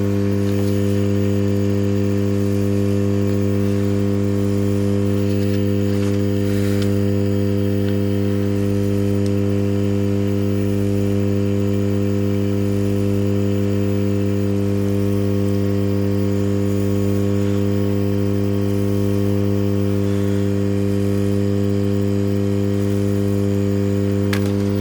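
Hot air rework station blowing steadily at about 368 °C to heat the board and desolder a chip. It gives a constant, even drone with a low hum, and there are a couple of faint clicks.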